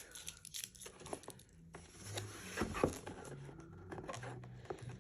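Packaging being handled by hand: scattered light clicks and rustling, with a couple of sharper ticks about three seconds in.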